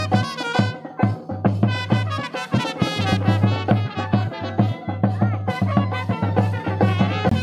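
Brass band music: trumpets playing a melody over a steady drumbeat.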